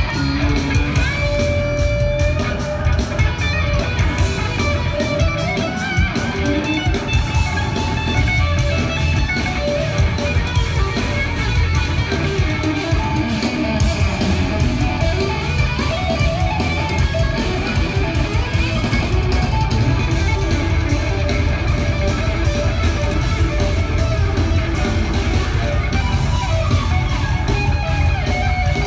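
Hard rock power trio playing live and loud: electric guitar, electric bass and drum kit together, with a heavy, steady low end.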